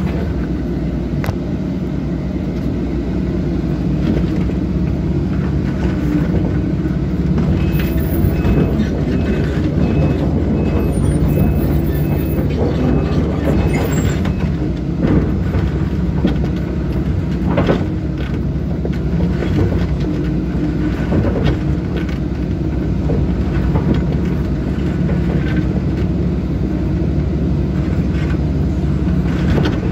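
Link-Belt 160 excavator's diesel engine running steadily under load, with scattered cracks and knocks of wooden debris breaking and falling as the bucket works the demolition pile. A high beep repeats about twice a second for several seconds in the middle.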